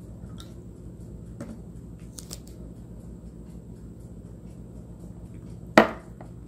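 A few light taps as a plastic drink bottle is handled and stood on a tiled countertop, then, about six seconds in, one sharp clack with a brief ring as a glass mug is set down on the tile.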